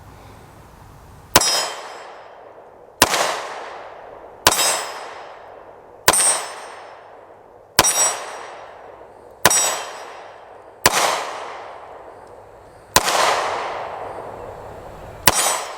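Nine 9mm pistol shots from a Canik TP9 Elite SC, fired slowly about one every one and a half to two seconds, each followed by the ringing clang of a steel gong target being struck.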